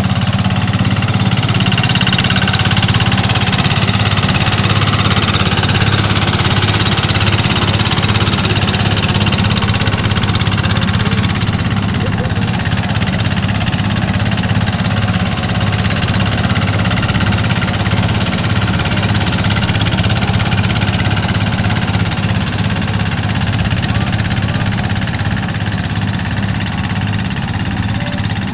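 Zaaga Inotech mini rice combine harvester running steadily as it drives through standing rice, a low engine drone under a steady machinery hiss.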